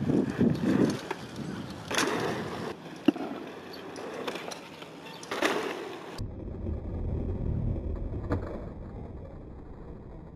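Mountain bike tyres rolling over a packed dirt trail, with a few sharp knocks. About six seconds in the sound changes abruptly to a quieter low rumble.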